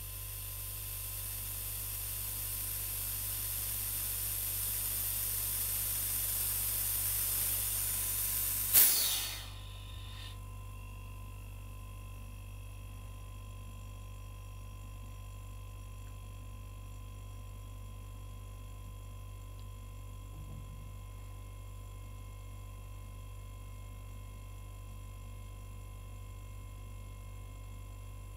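A refrigerator compressor pumping up an airbrush compressor's tank, its hiss growing steadily louder as pressure builds. About nine seconds in, the NE-MA pressure switch clicks off at about 7 bar and its unloader valve lets out a short hiss that dies away. Then the compressor stops, leaving only a faint steady hum.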